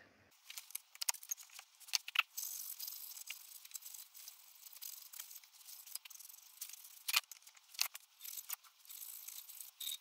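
A strip of abrasive cloth pulled back and forth around a bent metal latch bar clamped in a vice, cleaning it up: a faint scratchy rubbing with scattered clicks, steadier from about two seconds in.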